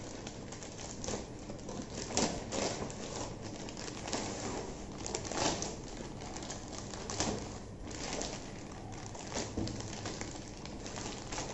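Plastic courier mailer bag rustling and crinkling as hands tear it open and handle it, with irregular small crackles and ticks.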